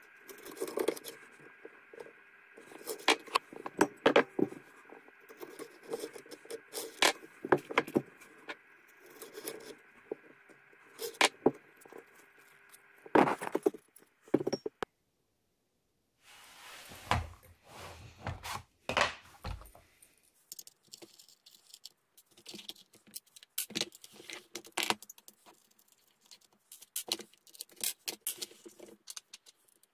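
Scattered clicks, clinks and knocks of hand handling: weight plates set onto and lifted off a wooden spring-compression rig over a faint steady hum, then, after a short break, the plastic and metal parts of an airsoft gun being taken apart on a wooden table.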